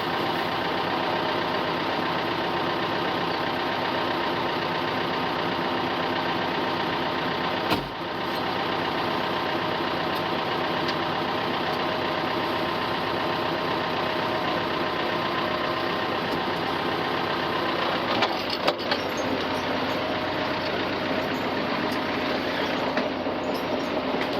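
Ford farm tractor's engine running steadily, with one sharp knock about eight seconds in and a few clanks later on.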